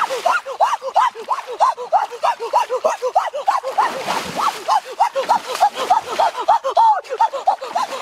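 Ducks quacking in a rapid, unbroken run of short calls, with a splash of water about four seconds in.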